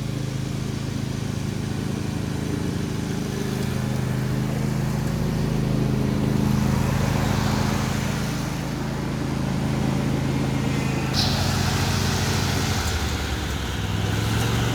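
John Deere D130 riding mower running steadily with the deck engaged while mowing. About two-thirds of the way through a hissing rush joins in, and near the end the engine note drops lower.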